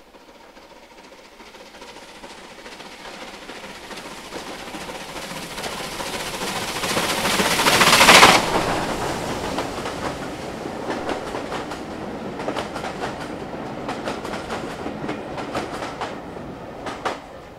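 Bulleid Pacific steam locomotive working hard under steam as it approaches, growing steadily louder and loudest as it passes beneath about eight seconds in. Its coaches follow, their wheels clicking rhythmically over the rail joints, then fade as the train draws away.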